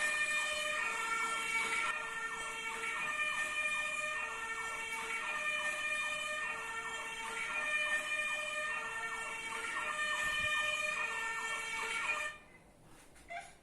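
Fire truck siren sounding in a repeating cycle of held tones and quick falling yelps, about every two seconds, then cutting off suddenly near the end.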